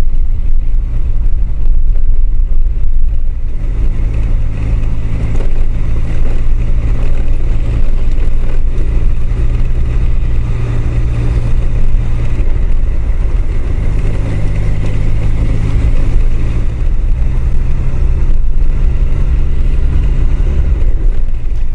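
Honda CBR1000F inline-four engine running steadily while riding, heard through a helmet microphone with heavy wind rumble. The engine note shifts a little around twelve seconds in.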